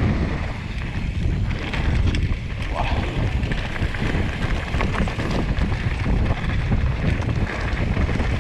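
Wind buffeting the microphone of a mountain biker's camera during a fast descent, over a steady low rumble from tyres on rocky ground, with the bike rattling in short scattered clicks.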